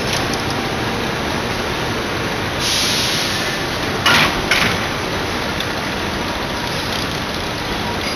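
Steady machinery noise of a rockwool sandwich panel production line running, with a brief burst of hiss just before three seconds in and two sharp metal knocks about four seconds in.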